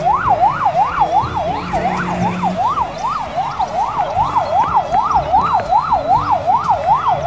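Police car siren yelping: one tone sweeping up and down about three times a second, with low road rumble beneath.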